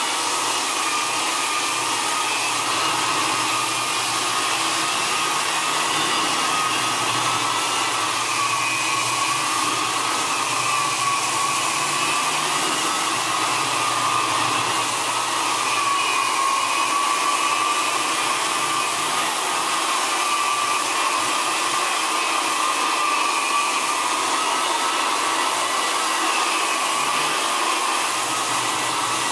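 Hardwood floor edger sanding along the edges while hooked up to a dust-extraction vacuum: a steady motor whine over a rushing noise, the pitch wavering slightly up and down as the machine is worked.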